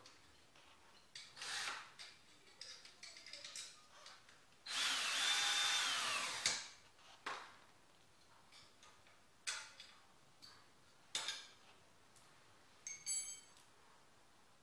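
Cordless drill run for about two seconds on a bolt of a mini bike's exhaust, its motor whine rising and then falling. Sharp clicks and knocks of tools and metal parts come before and after it, and the last one, near the end, rings briefly.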